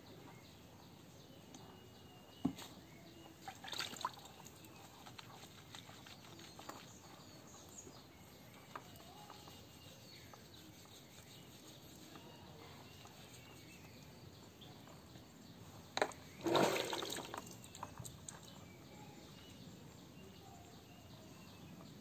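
Water sloshing and dripping in a plastic tub as a wet dog is rubbed down by hand, with a louder splash about three-quarters of the way through.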